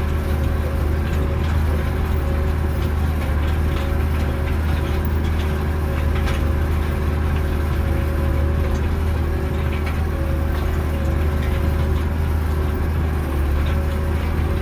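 Tractor engine running steadily at constant revs, with a strong low hum and occasional light clicks and rattles.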